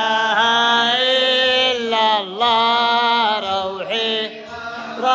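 Male voices chanting a slow devotional religious chant in long, held notes that waver in pitch, with short breaks a little past two seconds in and near four seconds.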